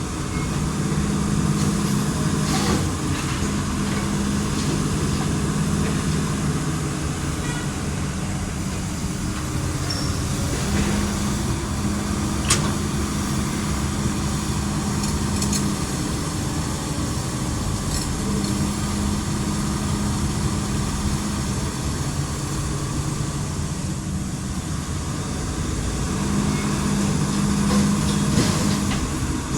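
Heavy trailer truck's diesel engine running with a low hum that swells and eases every few seconds, and a single sharp click about twelve seconds in.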